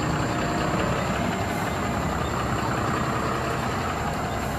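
Large vehicle's engine running steadily at low speed, with a constant low hum and no changes in level.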